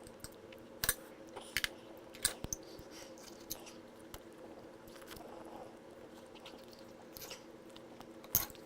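Chewing of steak, with sharp clicks every second or so, over a steady hum.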